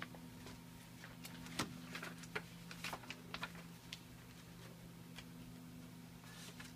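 Steady low electrical hum from the lab's test equipment, with a run of light, sharp clicks and taps between about one and four seconds in.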